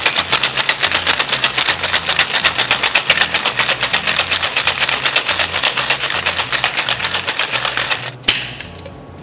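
Ice rattling hard in a metal tin-on-tin cocktail shaker, shaken fast at about six strokes a second, stopping about eight seconds in with a single sharp knock.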